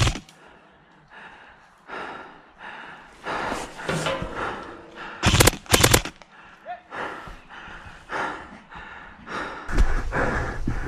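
Airsoft gun shots: one sharp crack at the start and a quick string of about five shots a little past halfway.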